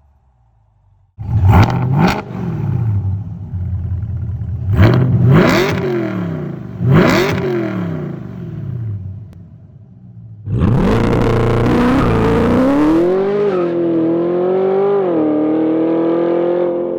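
C8 Corvette's LT2 V8 through a Fabspeed Supersport X-pipe cat-back exhaust. It comes in suddenly about a second in, then is revved in three or four sharp throttle blips that swoop up and die away. From about ten seconds in it runs loud and steady under way, its pitch wavering and slowly rising.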